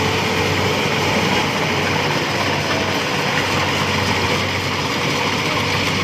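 Rice combine harvester running steadily under load, its engine and threshing machinery making a continuous even noise.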